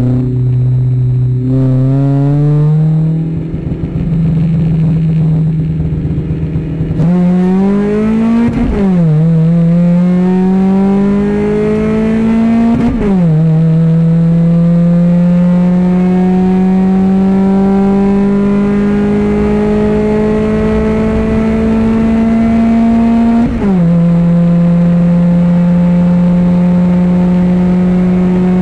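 Honda Civic 1.4 iS four-cylinder engine, fitted with an aftermarket air filter, 4-2-1 header and aftermarket exhaust, heard from inside the cabin during a hard acceleration run. The engine runs fairly steadily for the first seven seconds, then revs up through the gears: its pitch climbs and drops sharply at three upshifts, about 9, 13 and 23.5 seconds in, and it stays at high revs near the end.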